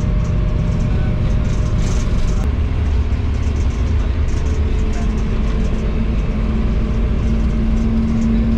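GEU-40 diesel-electric locomotive running at speed: a loud, steady rumble of the engine and wheels on the rails, with a steady hum coming in about halfway.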